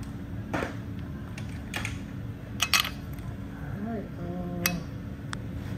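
Light metal clinks and taps from tools and timing-chain parts being handled on a stripped engine block: a handful of short sharp clicks, irregularly spaced.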